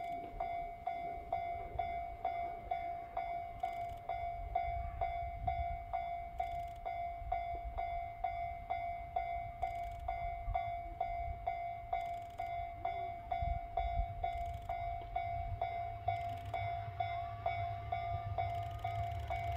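Railway level-crossing alarm ringing steadily at about two strikes a second, over a low rumble. In the last few seconds a faint rising engine note comes in from the approaching KiHa 200 diesel railcar.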